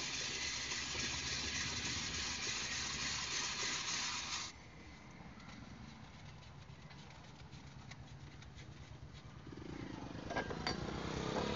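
Hand-cranked ice shaving machine grating a block of ice into shaved ice: a dense, steady scraping that stops abruptly about four and a half seconds in. After it, only faint handling sounds, with a few light clicks near the end.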